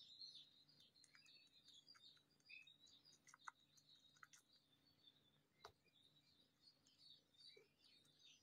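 Near silence, with faint high bird-like chirping throughout and a few soft clicks.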